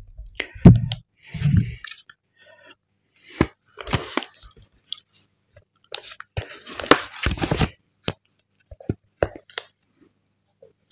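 The thin cardboard box of a Nothing Phone (1) being pried and torn open close to the microphone: scattered crackles and crunches, with a denser stretch of tearing a little past the middle.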